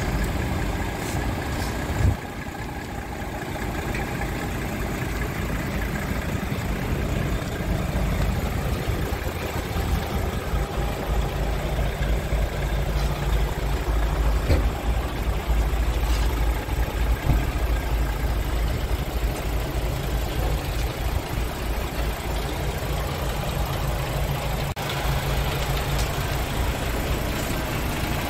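Scania R520 truck's diesel engine idling steadily, with a single knock about two seconds in.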